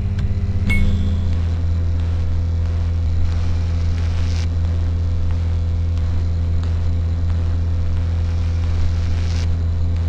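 Steady, loud, low electrical hum with a few fainter higher overtones, unchanging throughout, laid under the end card.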